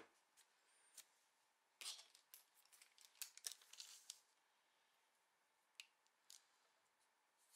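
Postcards being handled and set down on a stack: scattered light paper rustles and soft taps, busiest about three to four seconds in.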